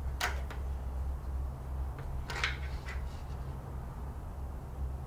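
Brief scratching and handling noises from a pen marking masking tape and a tape measure held against a fiberglass ladder rail, heard about a quarter second in and again around two and a half seconds, over a steady low hum.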